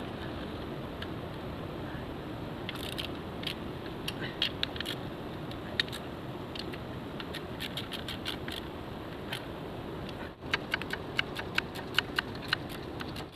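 Hand tools and small metal parts clicking and clinking during engine work, over a steady hiss, with a quicker run of clicks near the end.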